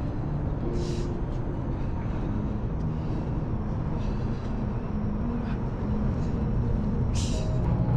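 Steady low rumble of vehicle traffic, with a short hiss about a second in and another near the end.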